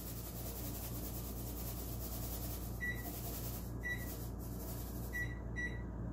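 Microwave oven keypad beeping as a timer is set: four short high beeps, the first about three seconds in and two close together near the end, over a steady low hum.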